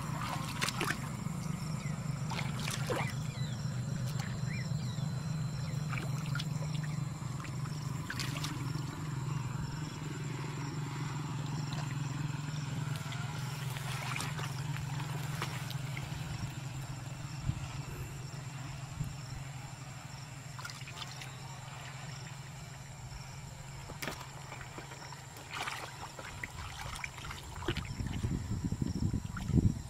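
Hands splashing and squelching in shallow muddy water while groping for fish, with scattered small splashes and a few louder ones near the end. A steady low hum runs underneath and fades in the second half.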